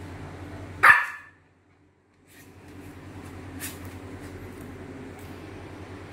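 A cockapoo puppy gives one short bark about a second in.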